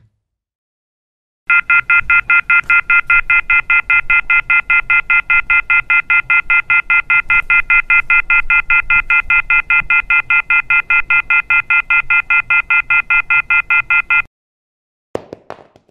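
Telephone receiver-off-hook warning tone: a loud chord of high tones pulsing rapidly, about five beeps a second, the signal that a handset has been left off the hook. It cuts off abruptly, and near the end comes a brief clatter of a telephone handset being dropped.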